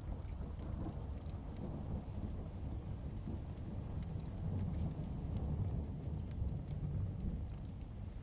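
Heavy rain with a steady low rolling rumble of thunder, and scattered sharp crackles and pops from a wood fire on top.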